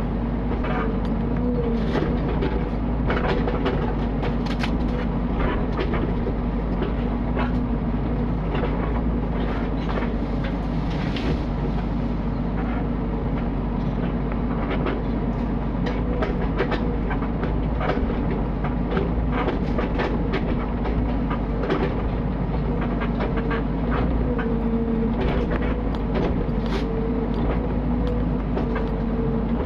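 Mini excavator's diesel engine running steadily under working load, with frequent clanks and knocks from the machine at work.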